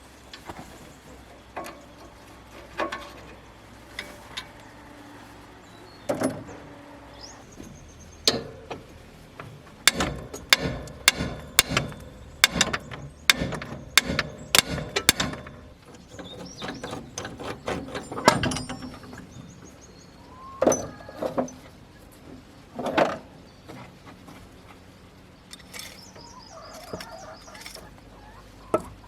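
Metal-on-metal knocks and clinks of hand tools at work on a tractor. About a third of the way in comes a quick run of about a dozen sharp strikes, roughly two a second, followed by a few single louder knocks.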